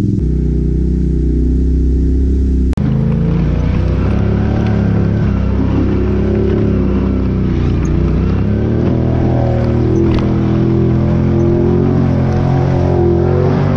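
Can-Am ATV engines running on the move, their revs rising and falling. The sound changes abruptly about three seconds in.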